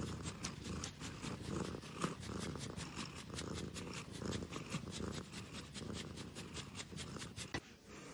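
Domestic cat purring close up, a rapid, even pulsing that eases off near the end.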